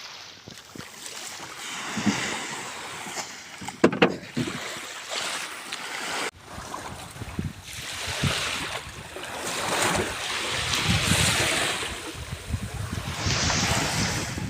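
Wind buffeting the microphone and waves washing around a small wooden fishing boat at sea, swelling and easing in gusts. There are a couple of sharp knocks about four seconds in.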